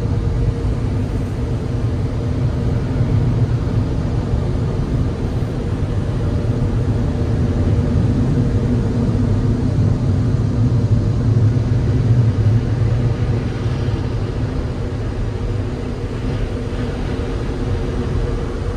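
Steady low rumble and hum of tunnel car wash machinery, heard from inside the car's cabin as the car rides the conveyor toward the exit. It swells a little midway and eases near the end.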